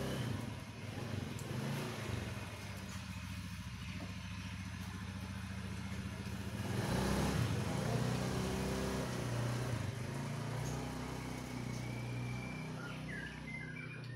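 A motor vehicle engine running steadily, with a low hum that grows louder about seven seconds in and then eases off.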